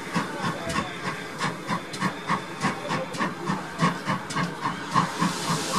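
London Transport L94, an ex-GWR 57xx pannier tank steam locomotive, working a train at low speed: steady exhaust beats, about three a second, over a hiss of steam.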